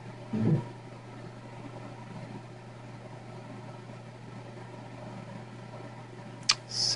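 Steady low electrical hum with faint room noise, broken by a brief low vocal sound about half a second in and a click near the end.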